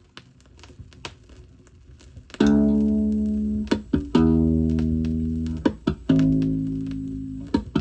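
Opening of a 1970s disco-funk 45 rpm single playing on a turntable. Faint clicks for about two seconds, then three long held chords with bass, each fading away, separated by short sharp hits.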